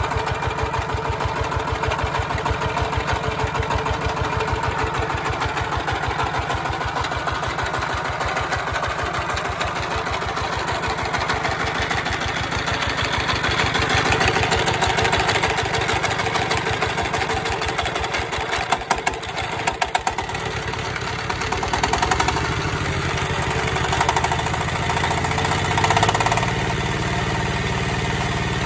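ZS195 single-cylinder, hand-start diesel engine running steadily with an even firing beat. A few sharp knocks stand out in the second half.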